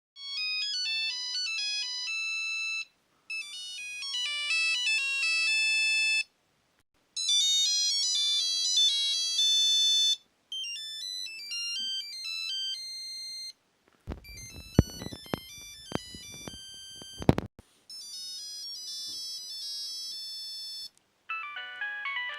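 A run of Nokia mobile phone ringtones: short electronic melodies of about three seconds each, played one after another with brief silent gaps. One in the middle has sharp drum-like hits under the tune.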